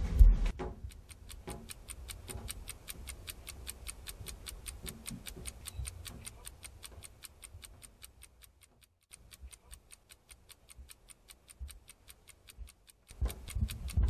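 A clock ticking steadily and evenly, about four ticks a second, over a faint low background. A heavy low thump comes at the very start.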